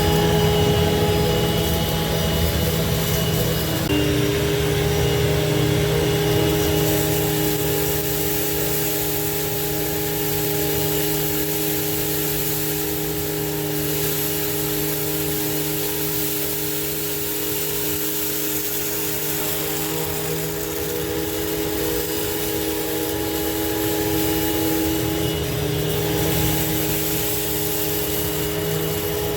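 Hoover WidePath Fold Away upright vacuum cleaner running steadily while picking up a test mess, its motor hum stepping slightly in pitch about four seconds in and again near the end.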